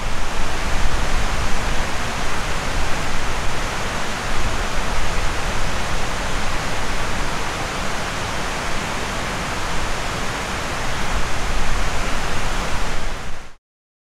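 Steady rushing outdoor noise: an even hiss with a low, unsteady rumble beneath. It cuts off suddenly about half a second before the end.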